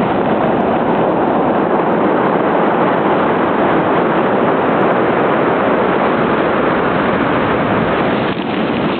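Ocean surf on a beach: a steady, loud roar of breaking and washing waves.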